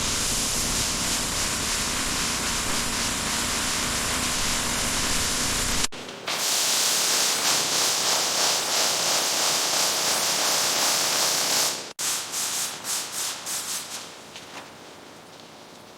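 Steady hissing abrasive rubbing, in two stretches that break off abruptly about six and twelve seconds in, then a run of short scrubbing strokes that fade away.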